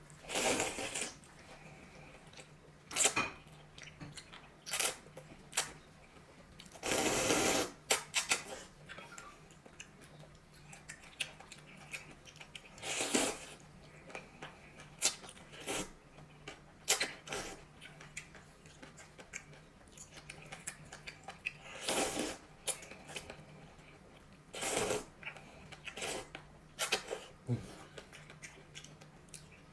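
A man eating noodles in soup: several loud slurps a few seconds apart, each lasting under a second, with chewing and small clicks in between.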